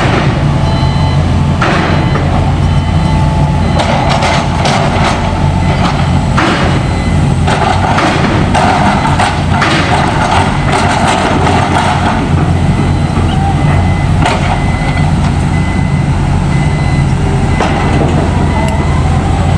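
A heavy engine running steadily, with scattered knocks and clatter over it.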